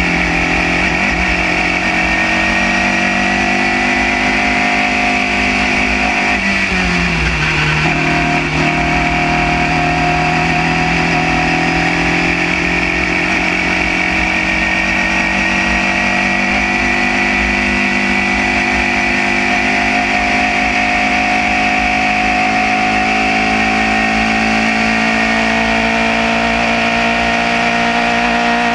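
Formula Junior single-seater's engine at racing speed, heard from an onboard camera. Its pitch drops briefly about seven seconds in as the car slows for a corner, then climbs slowly and steadily as it accelerates down a straight.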